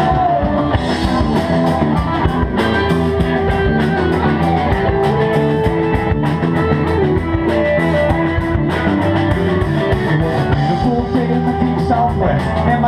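Live rock band playing an instrumental break: electric guitars, bass guitar and drum kit playing loud and steady.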